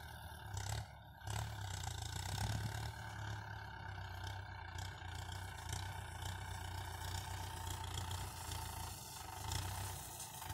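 Tractor diesel engine running steadily under load while driving a mounted power sprayer, a continuous low hum.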